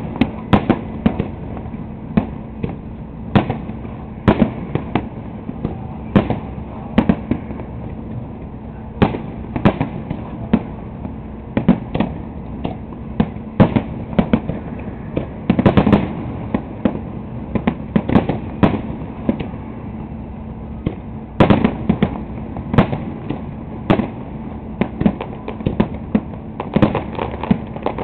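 Fireworks display: shells bursting over water, a continual run of sharp booms and cracks, some single and some in rapid clusters.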